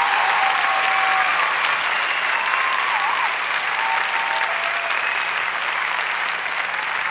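Audience applause, a steady clapping that runs on evenly, loudest in the first couple of seconds and easing slightly after.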